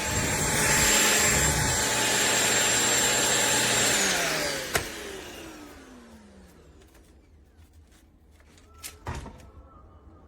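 Shark POWERDETECT corded stick vacuum running with a steady high whine. About four seconds in it is switched off and the motor winds down in a falling whine, with a sharp click along the way and a few faint knocks near the end.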